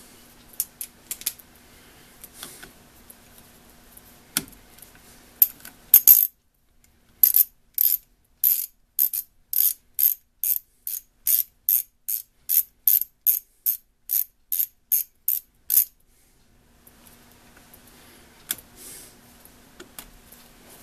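Mechanical clicking: scattered light handling clicks, then a long run of sharp, evenly spaced clicks, about three a second for some eight seconds, like a ratchet turning.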